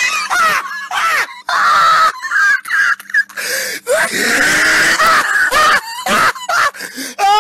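A voice making loud, harsh, strained cries, broken by short gaps.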